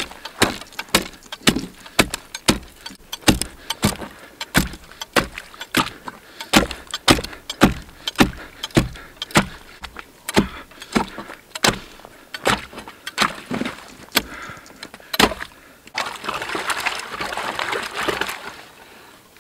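Ice spud chiselling a hole through lake ice: sharp strikes about two to three a second, then a rough scraping sound for the last few seconds.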